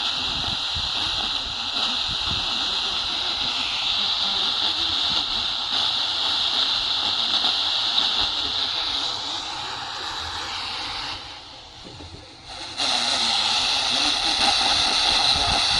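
Prunus portable radio on the FM band, tuned to a weak station and giving mostly steady static hiss. The hiss drops away for about a second and a half roughly eleven seconds in, then comes back.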